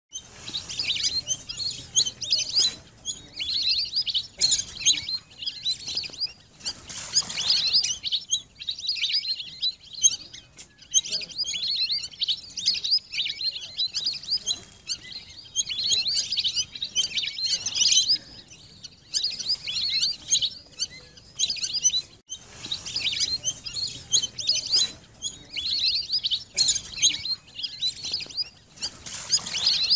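A flock of lesser whistling ducks giving high, squeaky whistled calls, many birds overlapping without a break.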